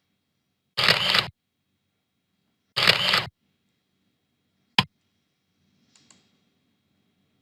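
PowerPoint's built-in camera shutter sound effect playing twice, about two seconds apart, each a short loud burst. A single sharp click follows a little before the five-second mark.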